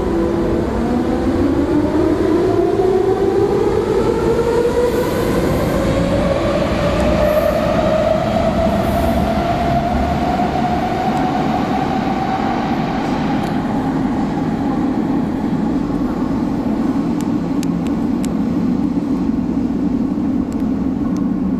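Athens Metro electric train from the 1990s pulling away, its traction motor whine rising steadily in pitch for about ten seconds before levelling off and fading. A steady rolling rumble is left, with a few sharp clicks near the end.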